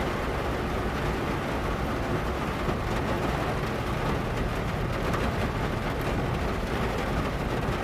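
Rain falling on a Chevrolet's bonnet: a steady, dense patter of drops on the sheet metal with a low rumble underneath.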